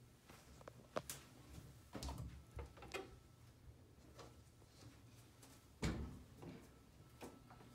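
Soft clicks and knocks of a bathroom medicine cabinet door being opened and handled, about half a dozen, the loudest knock about six seconds in.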